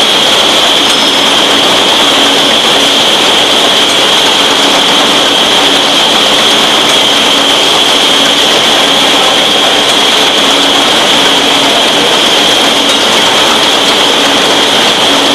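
Rotary pilfer-proof cap-making machine running: a loud, steady mechanical hiss with a high whine over it.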